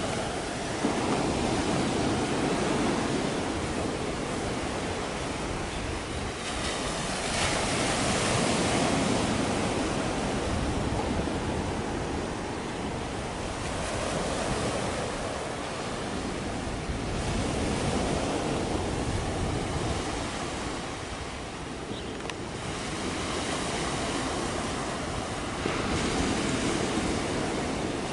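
Wind and sea waves rushing, swelling and easing about every eight or nine seconds, with wind buffeting the microphone.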